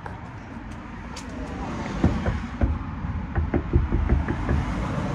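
Handling noise from a handheld camera's microphone: a low rumble, with irregular thumps and knocks starting about two seconds in, as the camera rubs and bumps against clothing.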